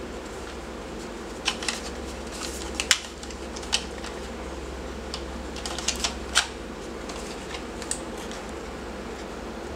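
Battleaxe airsoft M14 magazine being handled, giving a dozen or so irregular sharp clicks and taps over a steady low hum.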